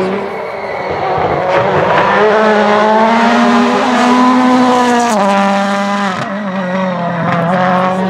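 World Rally Car's turbocharged 1.6-litre four-cylinder engine running at high revs as the car comes past. The note climbs for about four seconds, drops sharply about five seconds in, then carries on at a steadier pitch.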